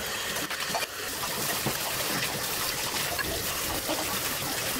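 Water pouring and splashing into a stainless steel sink as glassware and a cup are rinsed, a steady run of water.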